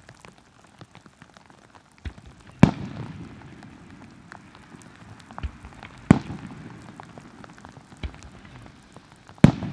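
Aerial fireworks shells bursting: three loud bangs about three and a half seconds apart, each with a rolling echo and a fainter thud just before it. Heavy rain hisses and patters throughout.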